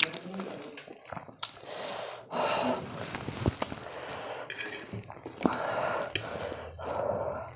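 Metal fork clinking and scraping on a plate as spicy instant noodles are twirled up, with a few sharp clinks. Between them come noisy breaths of someone struggling with very hot, spicy food.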